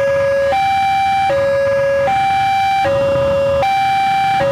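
Level-crossing warning alarm sounding, a steady two-tone signal that alternates evenly between a higher and a lower tone, each held about three quarters of a second, warning that a train is approaching and the barrier is down.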